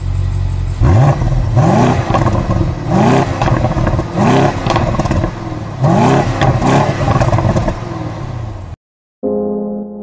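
A car engine revved hard in a series of quick throttle blips, each a rising surge in pitch, about one a second. It cuts off suddenly near the end and piano music begins.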